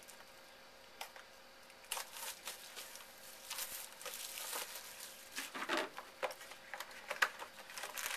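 Wrapping on a box of trading card packs crinkling and tearing as it is opened by hand, in irregular bursts starting about two seconds in, after a single click.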